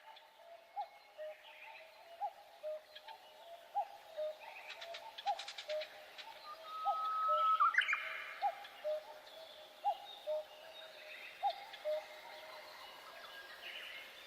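Forest birdsong: a low call repeats about once a second under a scatter of higher chirps and trills. A louder rising whistle with a burst of chirping comes about halfway through.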